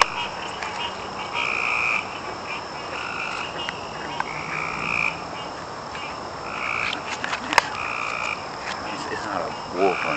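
Frogs calling in a chorus: repeated calls, each about half a second to a second long, overlapping one another, with a steady high tone behind. A sharp click comes about seven and a half seconds in.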